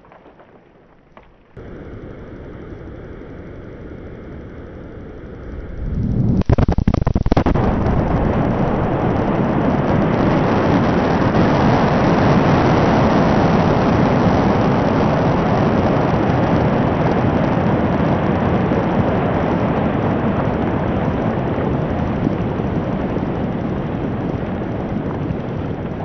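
Quarry rock blast, played back at quarter speed. About six seconds in the sound rises suddenly with a few sharp cracks, then turns into a long, loud rumble that fades slowly. A quieter steady noise with a faint hum comes before the blast.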